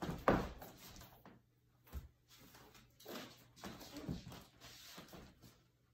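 Thumps, footfalls and rustling from a person twirling a baton and stepping, lunging and kicking on a wooden floor. The loudest bump comes about a third of a second in, followed by a scatter of softer knocks and shuffles.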